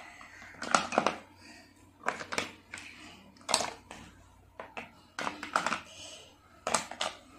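Small plastic toy kitchen pieces clicking and clattering as they are set one by one into a hard plastic carry case: a string of separate light knocks, a few every second or two.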